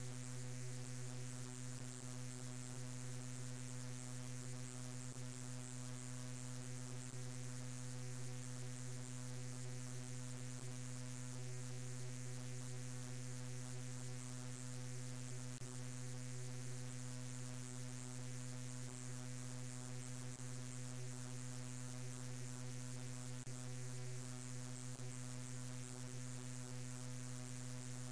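Steady low buzzing hum with a layer of hiss, unchanging throughout.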